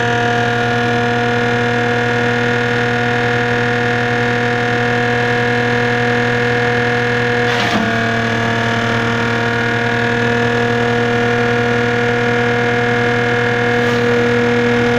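Mini tractor's engine driving a PTO-mounted KCI shredder, running as a loud, steady hum at constant speed. About eight seconds in the pitch dips briefly, then settles a little lower as the shredder takes in a load of palm fronds.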